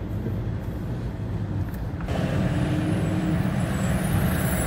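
Bentley Continental's twin-turbo V8 running at low revs, about 2,000 rpm, while the car drives slowly, with road and wind noise through the open top. It gets louder about two seconds in.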